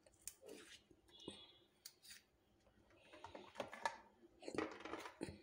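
Faint clicks and soft rustles of hands picking up and setting down raw vegetables (green beans, carrots) on a plate, sparse at first and busier after about three seconds.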